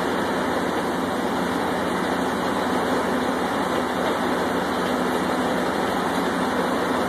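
Land drilling rig's engines and machinery running, a steady loud noise with a low hum underneath.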